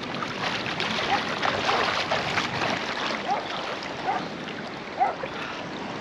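Sea water splashing and bubbling during a dive under the surface, with a few short bubbling gurgles about a second in and again around three, four and five seconds.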